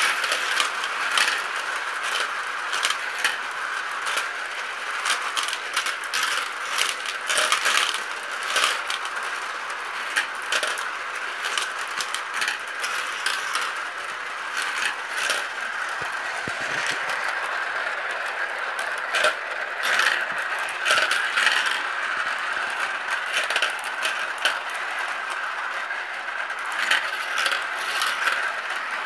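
Many marbles rolling round the plastic spiral funnels of a marble run: a steady whirring rattle, with frequent sharp clicks as marbles knock together and drop into the tubes and bowls below.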